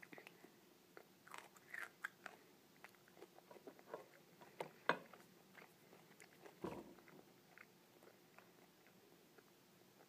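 Faint chewing of a bite of fresh chili pepper: soft mouth clicks and small crunches, a few a little louder than the rest.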